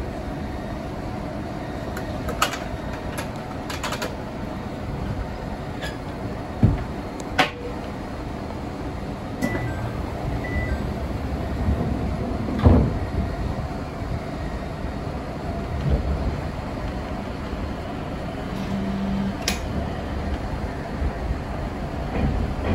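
Joshin Electric Railway electric train running along the line, heard from the front of the train: a steady low rumble of wheels on rail, with scattered light clicks and a few sharp knocks.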